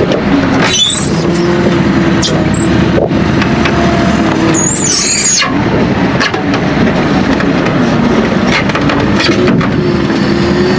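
Farm tractor running steadily with its machinery working, a dense mechanical din, with two brief high squeals, about a second in and again about five seconds in.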